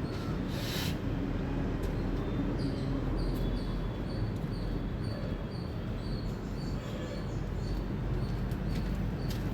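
Indian palm squirrel giving its repeated high chirping call, about two chirps a second. A steady low rumble runs underneath.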